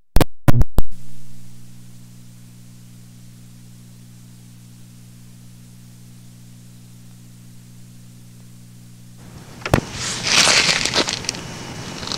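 Start of an old cassette tape recording: a few loud clicks in the first second, then a steady low electrical hum. About nine seconds in, the hum gives way to a sharp click and hissy rustling noise on the microphone.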